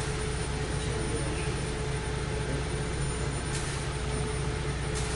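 A steady, even roaring noise with a constant mid-pitched hum under it, like a large fan or air handler, and a couple of faint short clicks in the second half.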